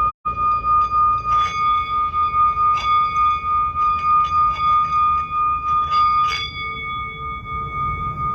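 Singing bowls ringing: one steady high tone with a pulsing wobble, with fresh strikes about a second and a half in, near three seconds and just past six seconds adding further tones. The sound cuts out for a split second right at the start.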